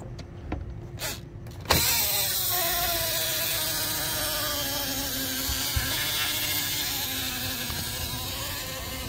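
Small electric motor of a Hot Wheels Mega Car Wash toy playset switching on about two seconds in and running with a steady whir and hiss, its pitch dipping slightly as it starts and then holding.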